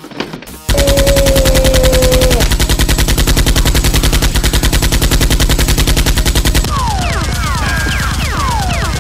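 Automatic gunfire sound effect: a long, rapid, even burst of shots that starts about three-quarters of a second in. Falling whistling tones sound over the shots near the end.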